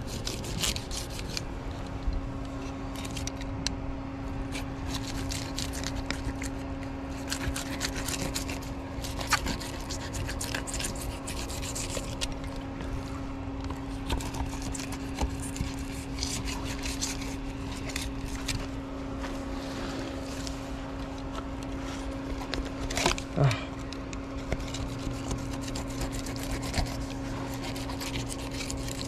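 Fillet knife scraping and cutting along a barracuda's scaly skin on a cleaning table, in many short scratchy strokes. A steady low hum runs underneath.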